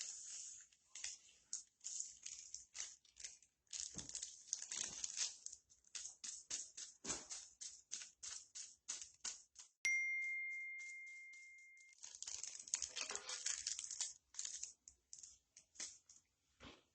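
Faint crinkling and tearing of a packet of gelatin powder being handled and opened, a long string of short crackles. About ten seconds in comes a single clear metallic ding that rings out and fades over about two seconds.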